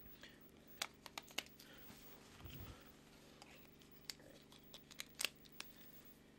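A mobile phone being handled: a dozen small sharp clicks in two clusters, with a soft low bump between them, over faint room tone.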